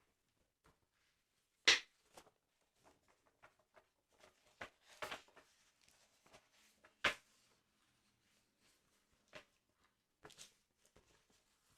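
Close-up handling of a football sticker album: short, crisp paper and cardboard rustles and taps that come at irregular intervals, with a small flurry about five seconds in.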